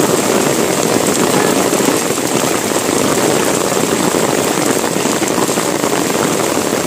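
Heavy rain pouring down in a steady, dense hiss on pavement and road.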